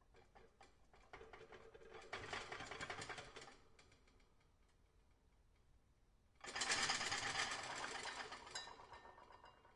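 Dishes rattling: a fast clatter of crockery knocking together that builds over a couple of seconds and fades out, then after a short pause starts again suddenly and louder before dying away.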